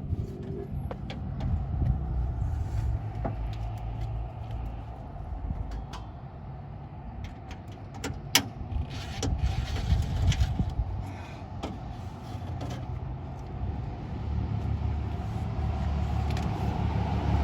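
A vehicle engine running steadily as a low hum, under scattered light clicks and knocks.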